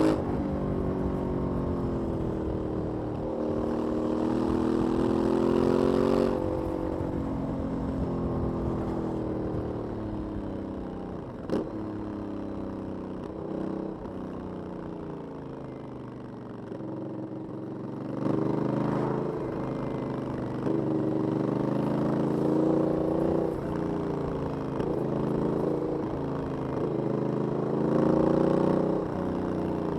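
Aprilia 900 motorcycle's V-twin with its stock exhaust, ridden. The engine note climbs and drops again and again through acceleration and gear changes. It settles to a lower, quieter run in the middle, then climbs through several short bursts of throttle again.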